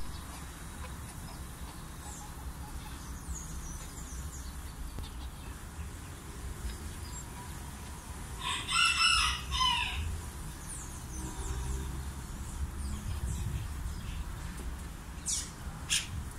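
A Serama bantam rooster crows once about halfway through: a short, high-pitched crow in several quick segments lasting about a second and a half. A steady low rumble runs underneath, with a few sharp clicks near the end.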